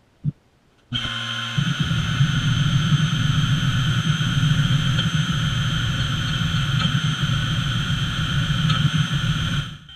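Spindle of a small CNC mill running steadily with a high whine over a low rumble, starting abruptly about a second in and cutting off just before the end.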